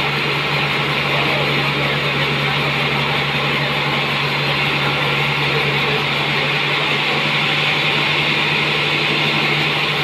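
Large band sawmill sawing through a trembesi (rain tree) log: a loud, steady hiss of the blade cutting the wood over a constant low hum from the machine.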